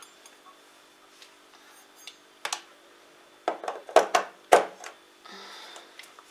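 Sharp clicks and knocks of a Redmond immersion blender being handled and fitted together: one click about two and a half seconds in, then a quick cluster of knocks around four seconds in, followed by a brief rustle as the cord is moved. The blender motor is not running.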